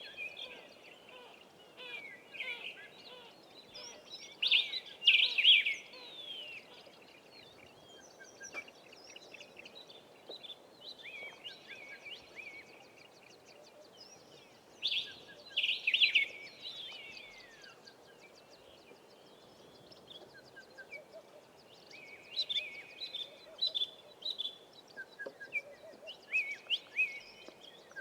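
A chorus of several wild bush birds calling and singing over one another. There are two loud bursts of whistled phrases with falling notes, about five and fifteen seconds in, and a run of quick repeated chirps near the end.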